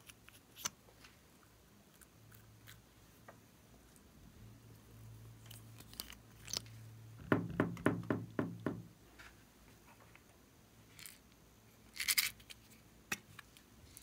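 Hands handling small plastic items over a glass baking dish: scattered light clicks and taps, then a quick run of about seven knocks in the middle, and a short scratchy burst near the end.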